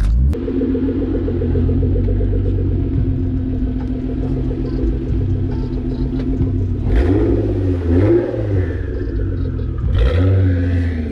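Twin-turbo Infiniti G35 coupe's VQ35DE V6 running steadily through its Motordyne exhaust, then revving up as the car pulls away about seven seconds in, with a second rise in revs near the end.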